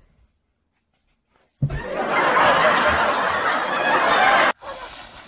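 Loud laughter breaking out about a second and a half in and cutting off abruptly near the end.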